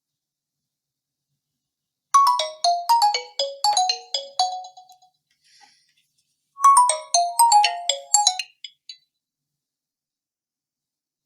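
Nokia 1 DS smartphone's loudspeaker playing a ringtone: a quick phrase of bright, bell-like notes, heard twice with about a second and a half's pause between.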